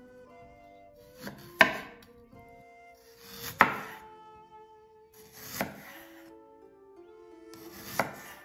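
Chef's knife slicing through a ginger root onto a bamboo cutting board: four slow cuts about two seconds apart, each a short rasp of the blade through the root ending in a sharp knock on the board.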